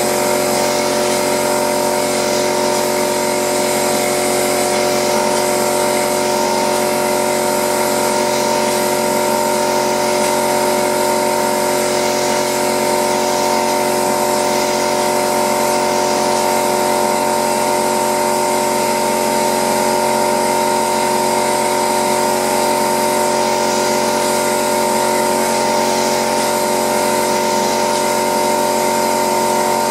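Drywall texture hopper gun spraying knockdown mud on compressed air, with its air compressor running: a steady hiss of air over a constant motor hum, without a break.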